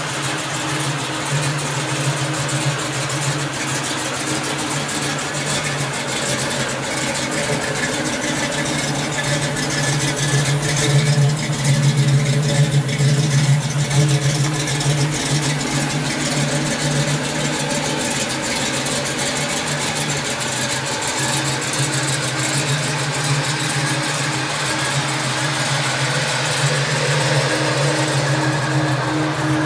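1970 Camaro's 396 big-block V8, fuel injected and breathing through long-tube headers and Flowmaster mufflers, idling steadily. It gets louder for a few seconds near the middle.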